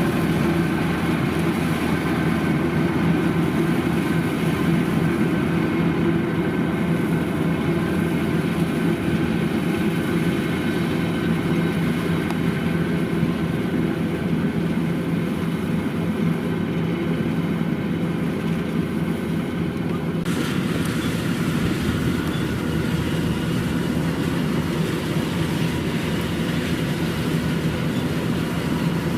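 Kubota DC-93 combine harvester's diesel engine running steadily under load. About two-thirds of the way through, the sound turns abruptly brighter, with more hiss.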